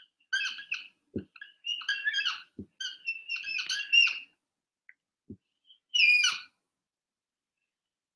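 Dry-erase marker squeaking on a whiteboard as letters are written, in short squeaky strokes, with a pause before a last burst about six seconds in. A few dull low knocks from the board fall between the strokes.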